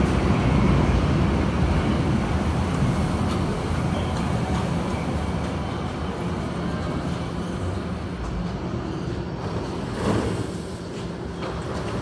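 Berlin U-Bahn train rumbling into the station and braking, its running noise fading as it slows to a stop. A short burst of noise comes about ten seconds in.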